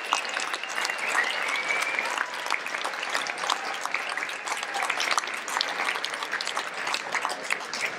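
Audience of many people applauding, steady clapping of many hands.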